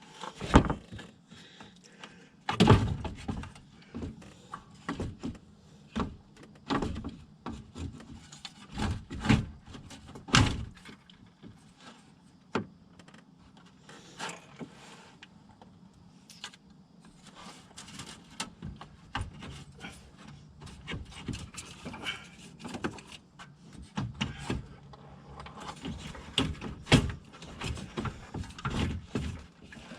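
Radiator being worked into place in the car's front end, with repeated knocks and thuds and rubbing and scraping of its plastic and metal against the mounts. The loudest knocks come in the first ten seconds or so.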